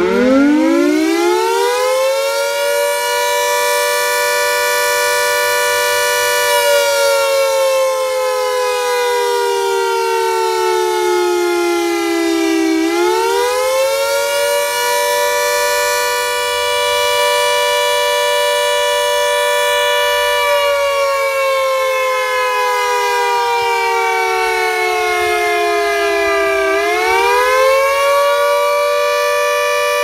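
Secomak CS8 nuclear-warning siren on its weekly test, fairly loud. It starts up and rises to full pitch within about two seconds, holds there, then twice slides slowly down over about six seconds and sweeps quickly back up: a wailing warning cycle.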